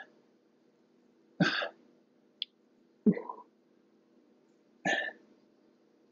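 A person breathing out hard in short forceful puffs, three times about every second and three quarters, in rhythm with exercise reps. A faint steady hum sits underneath.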